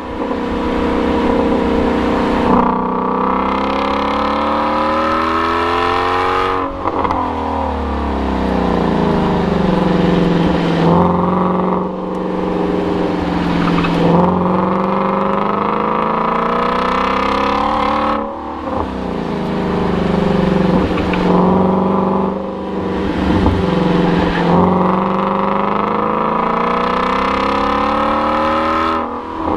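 2016 Shelby GT350's 5.2-litre flat-plane-crank V8 driven hard on track, revving out high and dropping in pitch again and again as it is accelerated, braked and downshifted.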